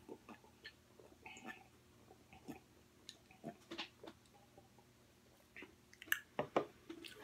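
Soft sips, swallows and wet lip smacks of a person drinking sparkling water from a small glass: a scatter of small mouth clicks, with a few louder ones about six seconds in.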